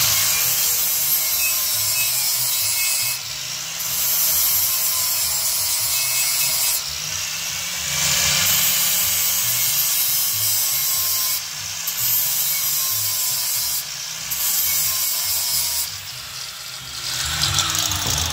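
Handheld power tool abrading metal, running steadily with about five short breaks where the tool eases off.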